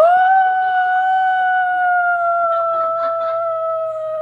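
A long, loud, high-pitched howl from a voice, starting suddenly and held on one note that slowly slides slightly lower.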